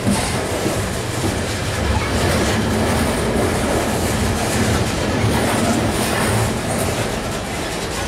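Freight train's open-top hopper cars rolling past close by: a steady rumble of steel wheels on rail with clacks over the rail joints.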